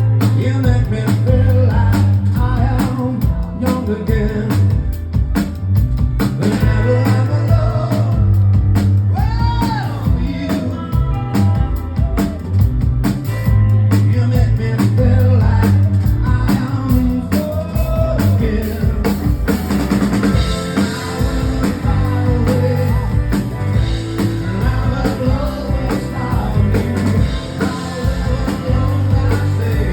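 A live rock band playing a song: a drum kit keeps a steady beat under singing and other instruments.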